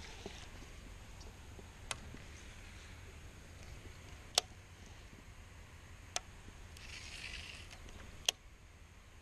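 Baitcasting reel being handled, giving four sharp clicks a couple of seconds apart, with a soft rustle shortly before the last one.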